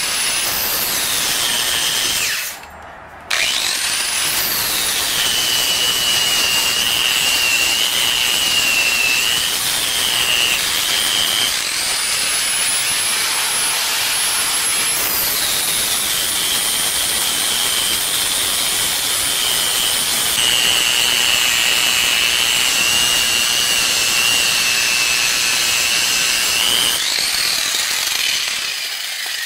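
Electric angle grinder grinding weld beads smooth on a metal motor-mount plate, its whine dipping in pitch each time it bears on the metal. It stops briefly about three seconds in, spins back up, and winds down near the end.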